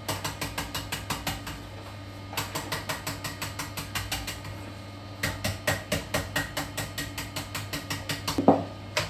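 Toilet brush scrubbing a porcelain toilet bowl in quick back-and-forth strokes, about five or six a second, in three runs with short pauses, ending in a louder knock.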